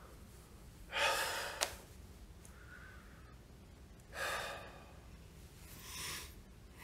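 A man breathing out heavily three times: a strong breath about a second in, another about four seconds in and a softer one near the end. A short sharp click comes at the end of the first breath.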